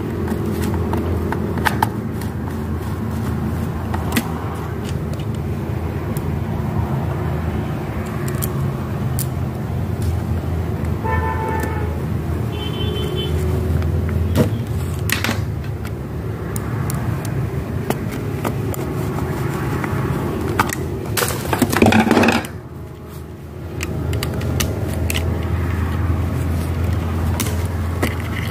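Small clicks and taps of screws and a screwdriver as an industrial sewing machine's control board is screwed back into its metal case, over a steady low background hum. About 22 seconds in there is a brief louder rustle, and the hum drops out for a second or so.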